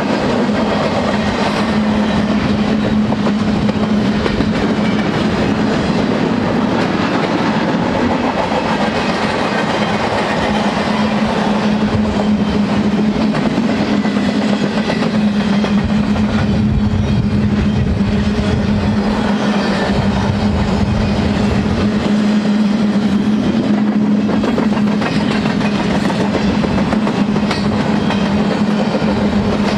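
Empty double-stack intermodal well cars of a freight train rolling past, the wheels clattering over the rail joints, with a steady hum under the clatter.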